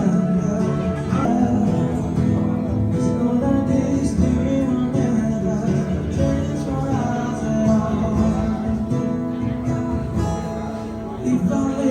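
Background music with plucked and strummed acoustic guitar and some singing.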